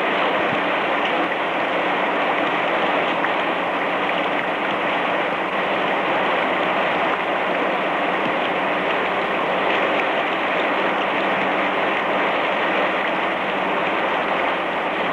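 Steady, dense din of many Honda motorcycle engines running at once on the factory test line, with a constant low hum beneath it.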